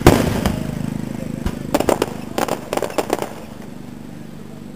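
Aerial firework shell bursting with a loud boom, followed by a run of sharp pops from about one and a half to three seconds in, then fading away.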